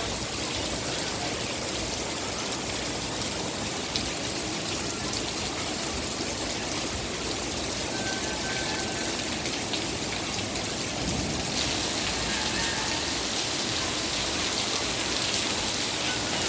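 Steady rain falling, growing heavier about two-thirds of the way through.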